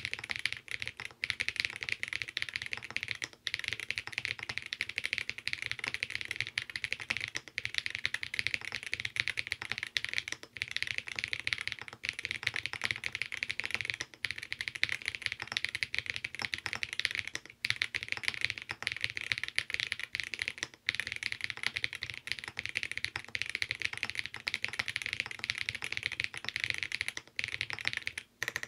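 Continuous fast typing on a custom Alice-layout mechanical keyboard built with lubed vintage Cherry MX Black switch housings on Boba U4T stems, an FR-4 plate, Poron foam and GMK doubleshot keycaps: a dense stream of keystrokes with a few brief pauses.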